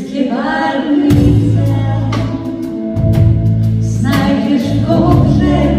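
Live pop band playing with voices singing. Drums and bass guitar come in strongly about a second in, with repeated cymbal and snare hits over keyboard and guitar.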